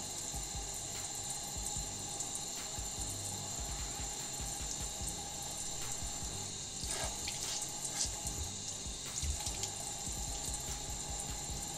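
Tap water running steadily into a bathroom sink while a makeup sponge is rubbed and squeezed under it in wet hands.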